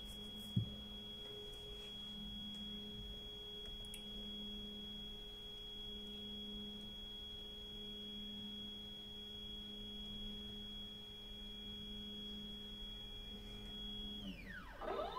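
Stepper motors of a CNC 1830 machine set up as a pencil plotter, driving the gantry slowly at constant speed: a steady high-pitched whine over a lower hum. Near the end the whine swoops sharply down in pitch and climbs back up as the motion slows and speeds up again. A short thump about half a second in.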